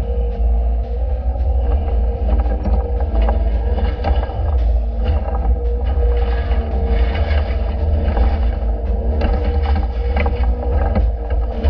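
Excavator's diesel engine running steadily, with a constant whine and scattered short clanks and knocks from the tiltrotator and bucket working.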